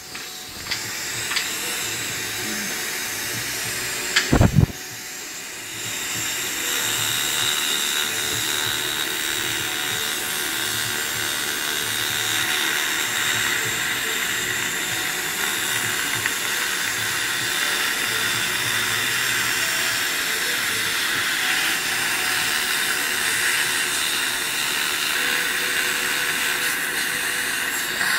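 Steady hiss of dental suction and a Biolase Waterlase handpiece's air-water spray, growing louder about six seconds in as the laser cuts the tongue tie. A few sharp knocks come just before the hiss rises.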